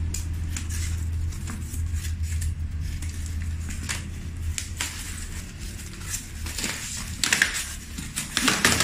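Styrofoam packing being handled and lifted apart: irregular crackling, creaking and scraping, busiest in the last two seconds.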